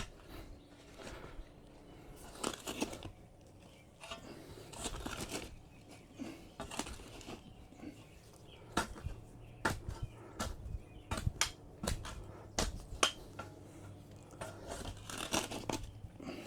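Irregular crunching and scraping with scattered sharp knocks, the sounds of hands-on work with materials.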